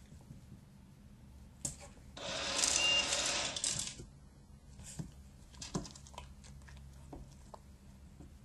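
Treat & Train remote treat dispenser running, a mechanical whirring rattle for about two seconds as it dispenses a reward. Scattered light clicks before and after.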